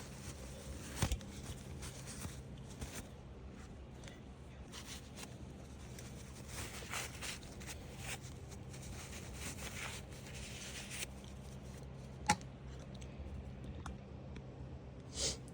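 Faint rustling and scraping of fan motor parts being wiped clean by hand with a tissue, with a few light clicks and one sharp click about twelve seconds in.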